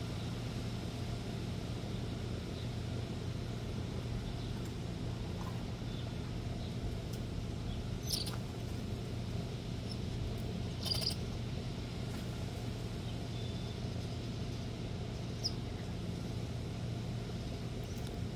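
Steady low outdoor background hum, with a few brief high chirps scattered through.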